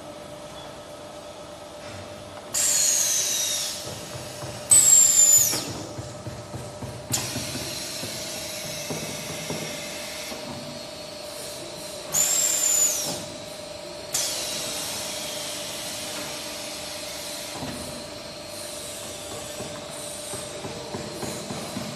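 Plastic pipe belling machine at work: a steady hum with several sudden bursts of hissing, some carrying a falling whistle, the loudest about five seconds in.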